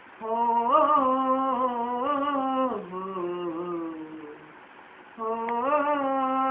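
A man's voice singing a wordless, drawn-out melodic phrase, held and wavering in pitch. The phrase steps down about a third of the way in and fades. After a short break, a second held phrase begins about five seconds in.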